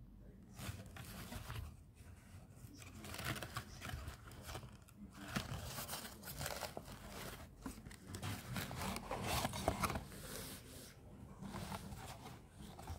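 Paperboard cosmetic box and its card insert being handled, rustling and scraping irregularly as the plastic cleansing-balm jar is taken out.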